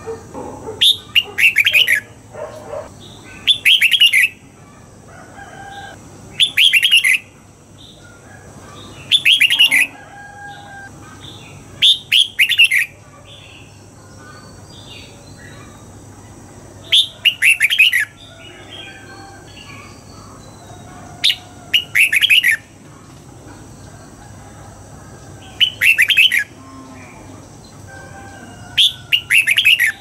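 Red-whiskered bulbul singing short, clear whistled phrases, each under a second and repeated every few seconds, with fainter bird calls between them.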